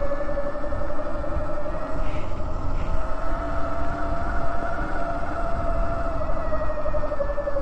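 Electric bike's motor whining steadily under way, its pitch rising gently over the first few seconds and easing back down near the end as speed changes, over a low rumble of wind and tyres.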